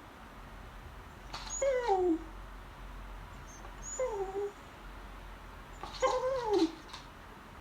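An old beagle whining to beg for food: three short whines about two seconds apart, each falling in pitch.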